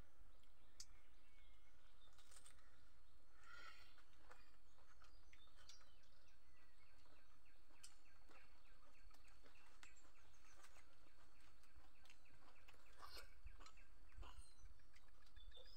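Quiet rural outdoor ambience: a low steady rumble with faint bird chirps and a few soft scattered clicks.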